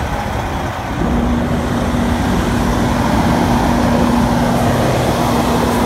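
Semi truck's diesel engine idling: a steady running noise with a constant hum, growing louder about a second in and then holding steady.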